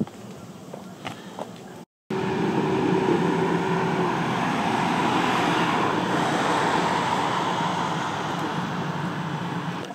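Loud, steady rush of engine noise with a low hum, starting abruptly after a brief dropout about two seconds in and easing slightly near the end.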